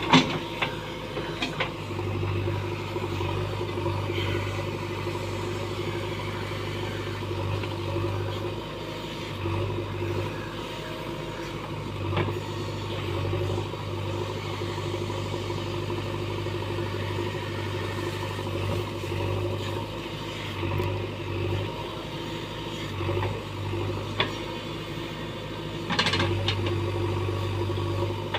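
JCB backhoe loader's diesel engine running steadily, with a few sharp knocks in the first couple of seconds and a louder stretch near the end.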